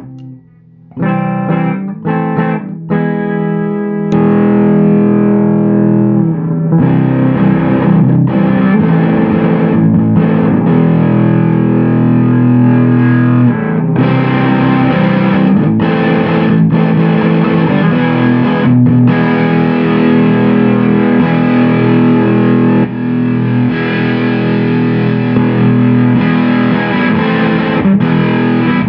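Electric guitar played through a KHP FX Audio Ratten distortion pedal, heavily distorted. It opens with a few short, clipped chord stabs and then moves into sustained distorted chords and riffs.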